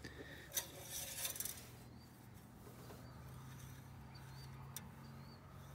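Faint clicks and light metal rattles from a truck engine's oil dipstick being worked loose and drawn out of its tube to check the oil. Short high chirps repeat faintly in the background.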